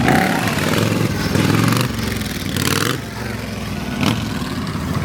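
Motorcycle engine of a trike chopper running loud and revving, its pitch rising and falling.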